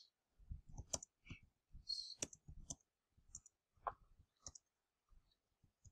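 Computer keyboard typing: faint, irregular key clicks as a short message is typed.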